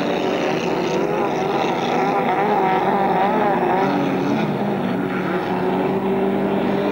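Inboard racing powerboat engine running, its pitch wavering up and down.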